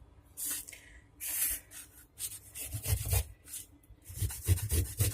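Fresh ginger root being grated by hand on a grater: rasping scrapes, a few scattered strokes at first, then a quick run of about five strokes a second near the end.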